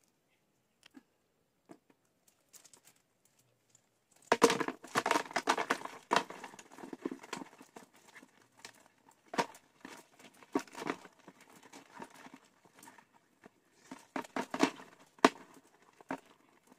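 Crabs being shaken out of a wire-mesh trap into a plastic bucket: a dense clatter of clicks and knocks starts about four seconds in, then goes on as scattered knocks with another burst near the end.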